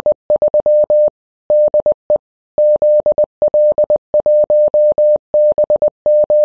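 Morse code: a single clean, steady beep keyed on and off in a fast run of short and long elements (dots and dashes), with brief gaps between the groups.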